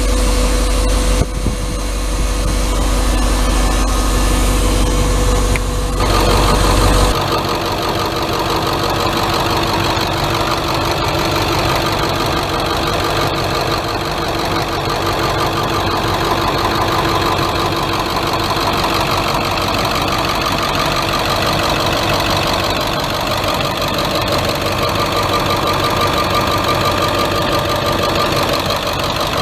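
1996 Blue Bird school bus's International T444E V8 turbodiesel idling steadily. About six to seven seconds in, the deep low rumble drops away and the sound changes character, then holds steady.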